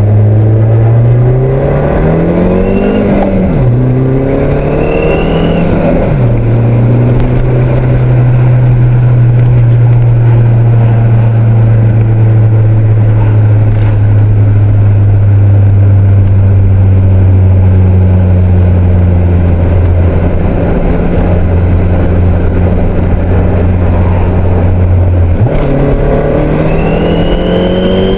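Turbocharged car engine revved three times and held at a steady speed in between, with a high whine from the turbo rising with each rev. The uploader does not know what is causing the whine.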